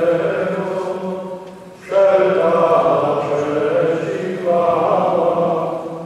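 Many voices singing a slow hymn together in long held phrases, with a brief break about two seconds in, over a steady low sustained note.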